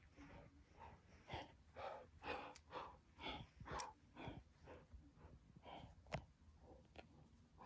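Quiet, quick breathy puffs of a person breathing close to the microphone, about two a second, with a few sharp clicks among them.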